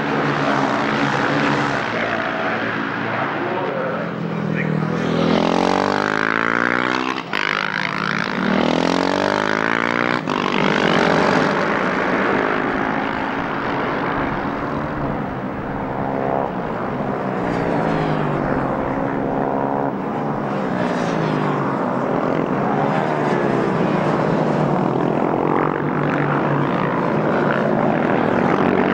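A pack of KTM 690 Duke single-cylinder race bikes at racing speed, several engines overlapping, their pitch rising and falling as the riders shift gears and sweep past.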